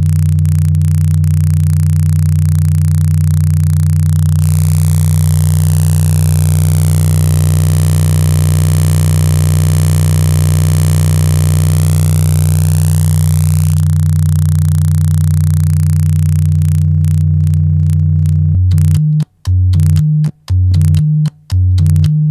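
Bauknecht STG 102 tuning fork modulator putting out a steady, loud low drone of two tones, about 90 Hz and 150 Hz, overdriven into a gritty distortion. About four seconds in, the upper hiss brightens with a phasing sweep that falls and rises again, fading back near fourteen seconds. Near the end the drone cuts in and out several times.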